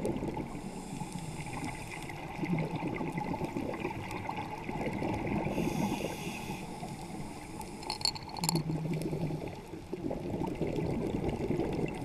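Underwater bubbling and gurgling from a scuba diver's exhaled breath, heard through the camera housing, with a brief hiss about halfway through and a few sharp clicks soon after.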